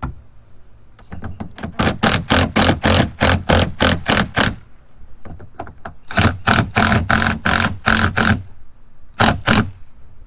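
Screws being driven to mount a kayak seat: three spells of rapid ratcheting clicks, about six a second, over a low steady hum.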